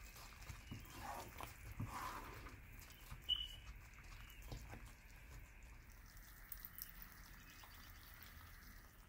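Faint sizzling of thick moong dal halwa in a non-stick pan as it is stirred with a wooden spatula, dying away near the end, with one short high squeak about three seconds in.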